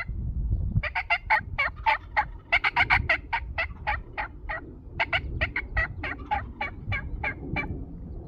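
Turkey yelping: a long run of short, evenly spaced yelps, about four a second, in two bursts with a brief pause between them.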